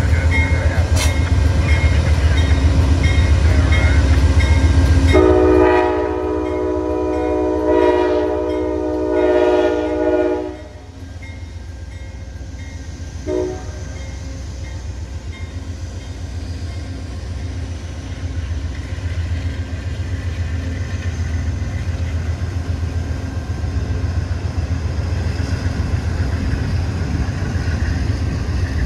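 Amtrak GE Genesis P42DC diesel locomotive running hard past a grade crossing while the crossing bell rings, then its air horn sounding for about five seconds from about five seconds in and once more with a short blast near the middle. The passenger cars then roll past with a steady rumble and rhythmic wheel clicks over the rail joints.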